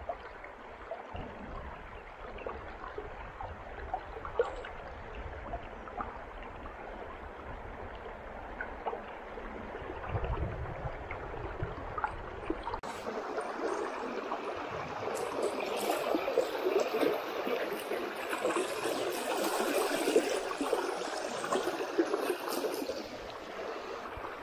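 River water running and gurgling close to the microphone, with small irregular splashes, growing louder about halfway through.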